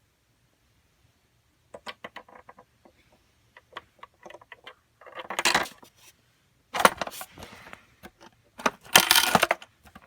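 A LEGO coin-operated vending machine being worked with a quarter: a run of small plastic clicks and rattles, then three louder clattering bursts in the second half as the brick mechanism moves.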